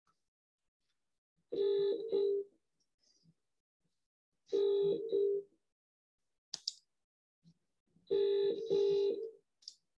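Telephone hold tone heard over a phone line while waiting in a call queue: a short pitched tone pattern about a second long, repeating three times at roughly three-second intervals. There is a faint click between the second and third tones.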